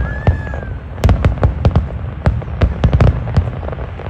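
Aerial fireworks display: a rapid run of sharp bangs and deep booms from bursting shells, packed thickest about a second in and again near the end, with a thin whistle fading out at the start.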